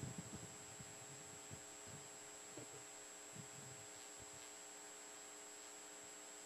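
Near silence with a faint steady hum, and a few faint low knocks about the first second.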